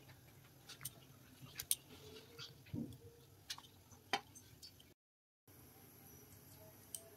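Faint, scattered ticks and small pops from milk simmering in an aluminium pan on a gas burner, over a low steady hum. The sound cuts out for about half a second around five seconds in.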